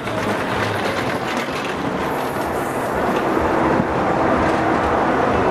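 BOLT roller coaster car running along the overhead steel track: a steady rail rumble that grows gradually louder as the car comes past.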